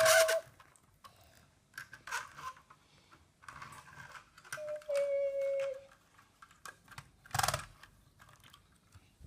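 Small plastic clicks and rattles of Lego bricks and models being handled and moved. About five seconds in there is a held tone for about a second, and about seven and a half seconds in a single louder burst of noise.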